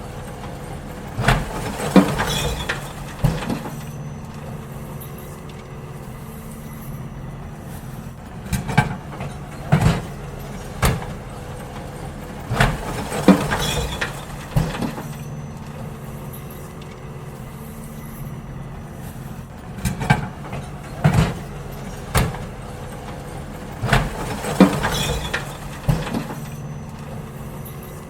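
Garbage truck engine running steadily, with five bursts of clanks and bangs as bins are tipped and emptied into it.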